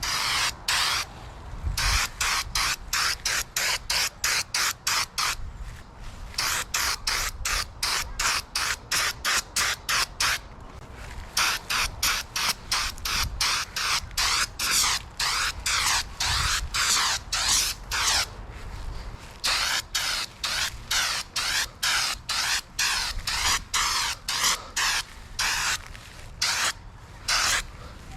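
Aerosol can of spray-on bedliner hissing in many short bursts, about two a second, with a few brief pauses: quick passes laying down a second coat.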